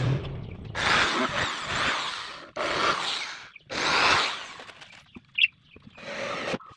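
Power drills working into plywood panels in several short bursts of about a second each, with brief pauses between them, boring holes and driving screws into the box. There is a single sharp click shortly before the last burst.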